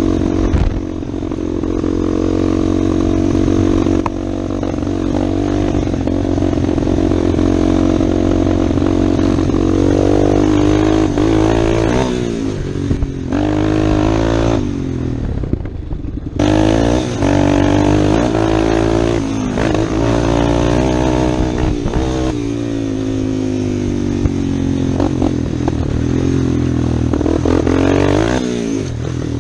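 Yamaha Warrior 350 ATV's single-cylinder four-stroke engine, heard from the rider's seat, pulling under load with the revs climbing and falling again and again as the rider works the throttle. About halfway through the throttle is shut briefly, then the engine revs straight back up.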